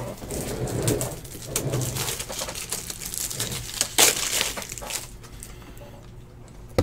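A trading card being handled and slid into a rigid clear plastic top loader: light rustling and clicking of card and plastic, with one sharp clack about four seconds in. A low voice hums for the first two seconds.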